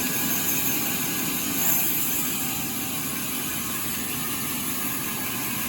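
Sawmill machinery running steadily, a continuous mechanical hum with a faint high whine and a brief swell just under two seconds in.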